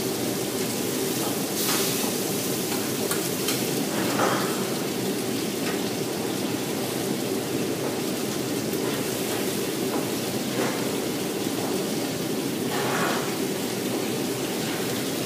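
Steady rushing noise of a wok station: food frying in woks over gas burners, with a few short clinks of a metal spatula against the pans.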